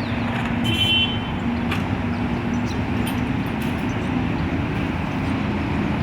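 Steady road-traffic rumble from a nearby avenue, with a faint low hum running through it. A brief high-pitched tone sounds about a second in.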